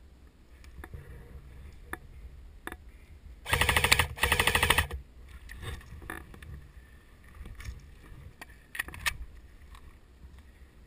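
Airsoft electric rifle firing two short full-auto bursts in quick succession, each about half a second of rapid, evenly spaced shots. Scattered single clicks and pops sound before and after them.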